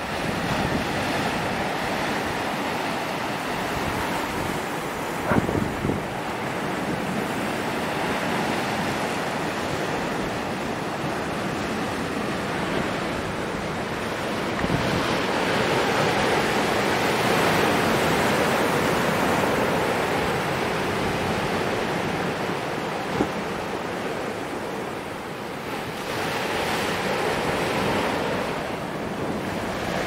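Ocean waves crashing and washing ashore: a continuous rushing surf that swells louder in the middle, eases briefly near the end and builds again, with one short thud about five seconds in.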